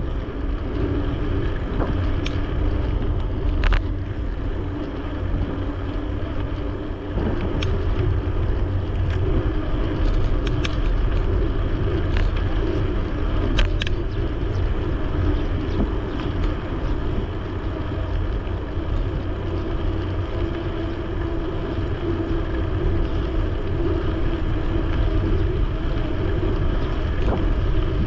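Dahon Mu-D10 folding bike riding along an asphalt bike lane, heard from a GoPro on the bike: steady wind on the microphone and tyre rumble, with a few sharp clicks, the strongest about 4 and 14 seconds in.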